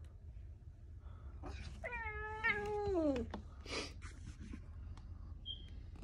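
British Shorthair cat meowing once, about two seconds in: a drawn-out meow lasting about a second and a half that slides down in pitch at the end.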